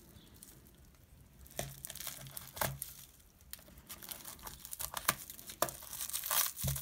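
Scissors snipping through the plastic wrapping and clear packing tape around a shipping tube, with crinkling and tearing as the wrapping is handled and cut. The snips and rustles come irregularly, sparse for the first second and a half and busier near the end.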